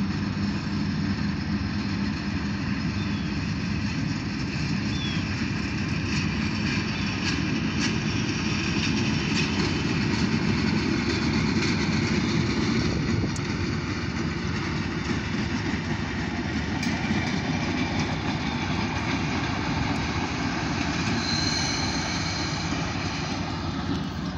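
Diesel locomotive running light along the track at low speed: a steady engine drone with rolling rail noise, growing a little louder about halfway through as it comes by.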